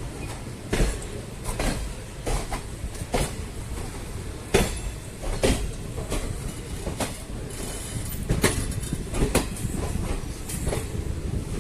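Express passenger train running on the rails: a steady low rumble with the wheels clacking over rail joints about once a second.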